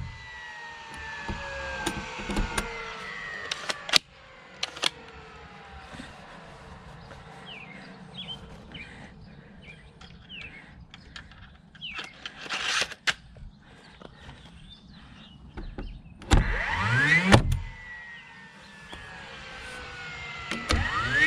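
A power nail gun fires nails into tongue-and-groove siding boards, with several sharp cracks. Its motor whine rises before a shot and falls slowly away after it.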